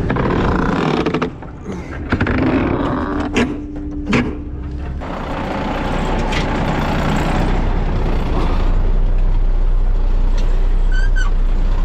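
Semi truck idling steadily while the sawdust trailer's door is forced shut: two sharp metallic bangs a few seconds in, with a brief squeal between them. The door is hard to close because frozen debris is jammed in its gap.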